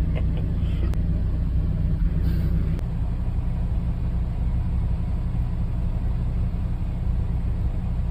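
Steady low rumble of a running vehicle engine, its pitch shifting slightly about three seconds in.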